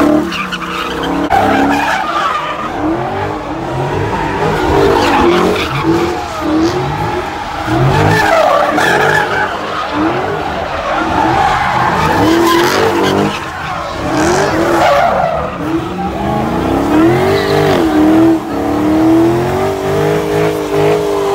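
A car engine revving hard up and down again and again while its tyres squeal and skid, as the car spins donuts. The revs climb and hold higher near the end.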